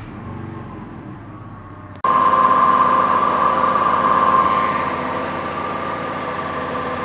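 Mercedes M111 inline-four petrol engine idling, heard close up. About two seconds in it becomes suddenly much louder, with a steady high whine over the running.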